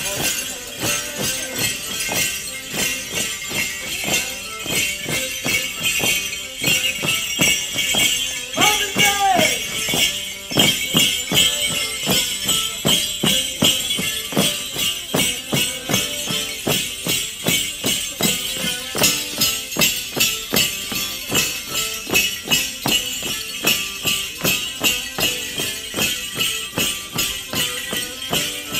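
Rhythmic jingling of the bells on borica dancers' boots, shaken with each step and stamp at about two to three strokes a second, over folk dance music.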